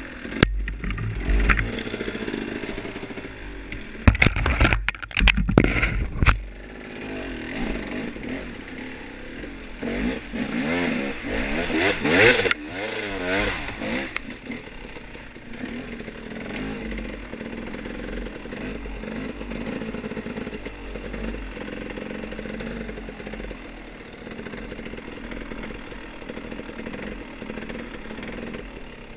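Dirt bike engine running over a woods trail, rising and falling in revs, with a cluster of loud knocks and clatter a few seconds in and a rev climb about halfway through, then settling into a steady low running.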